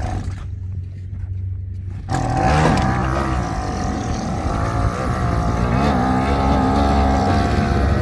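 Small outboard motor on a one-person boat running low and muffled, then throttled up about two seconds in and running steadily at higher revs, driving the boat away from the dock.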